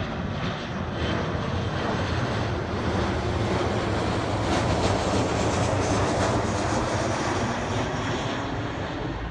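Boeing 737 jet climbing out overhead after takeoff: the steady roar of its twin turbofan engines. It swells slightly toward the middle and eases a little near the end.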